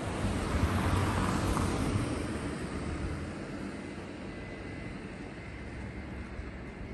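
A vehicle passing unseen on the street: a steady rush of engine and tyre noise that swells in the first two seconds and then slowly fades away.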